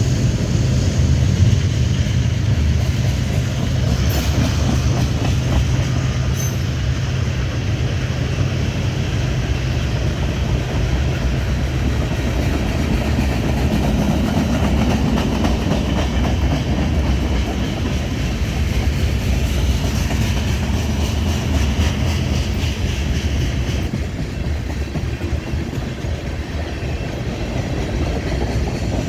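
BNSF manifest freight train rolling past: the locomotives' diesel engines droning low under the steady rumble of wheels on the rails. The low engine drone eases a little near the end.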